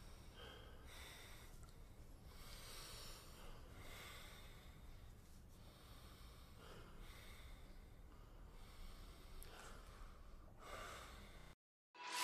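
Faint breathing from people lying in bed, a soft breath every second or two; the sound drops to silence near the end.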